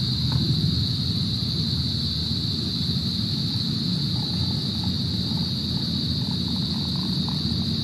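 Hot water poured from a metal pot onto a drip-bag coffee filter in a camp mug, a faint trickle in the second half, over a steady low rumble and a steady high hiss.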